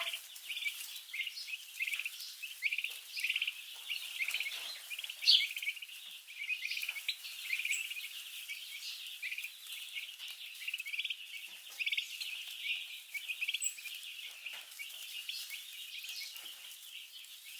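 A brood of week-old chicks peeping, many short high chirps overlapping without a break.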